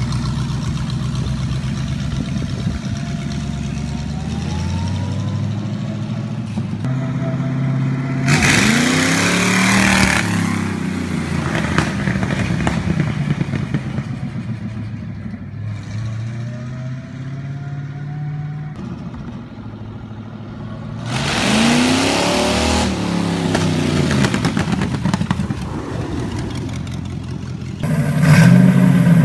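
V8 engine swapped into a vintage tractor running and revving. It accelerates hard twice, each time a loud surge whose pitch climbs and then falls away, with steadier running between. Near the end another engine-swapped tractor starts up loudly.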